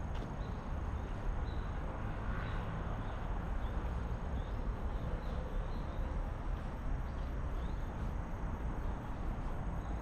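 Outdoor ambience on a walk: a steady low rumble, with short high chirps repeating irregularly through it and a thin steady high tone above.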